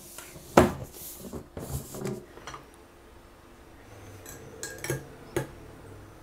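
Metal tea tin's lid being fitted and pressed down: a few knocks and clatters, the loudest about half a second in. Then, over a couple of seconds, a few light clinks against a glass mug.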